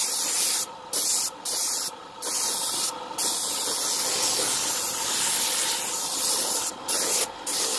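Spray gun hissing as it sprays clear coat, in short passes of about half a second to a second with brief breaks, and one longer pass of about three and a half seconds in the middle.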